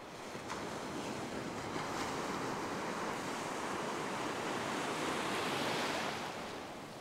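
Ocean surf: a wave breaking and its white water washing in over the shallows. The rush builds over the first couple of seconds and dies away near the end.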